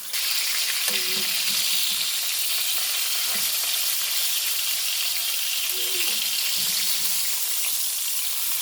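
Skin-on, bone-in chicken thighs frying skin-down in hot vegetable oil in a pot: a loud, steady sizzle.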